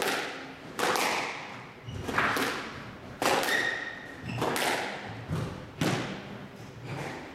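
Squash rally: the ball cracking off rackets and the walls in sharp, echoing impacts about once a second.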